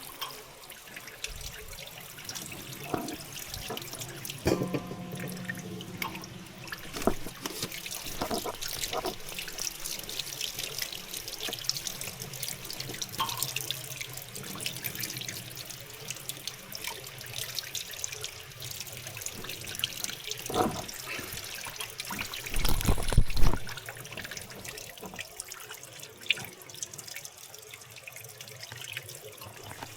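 Tap water running steadily into a sink, with scattered light knocks and clatter. About three-quarters of the way through comes one louder, deeper thump.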